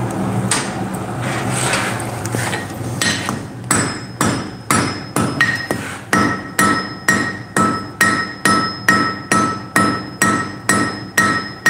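Hand hammer forging hot iron on the horn of an anvil, about two blows a second from around three seconds in, each blow ringing the anvil with a clear high tone. Before the hammering starts there is a steady rushing noise.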